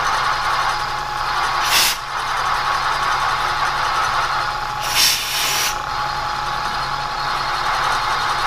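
Two blasts of compressed air from a handheld blow gun, a short one about two seconds in and a longer one around five seconds, clearing chips from a freshly milled hole in cast iron. A steady machine hum runs underneath.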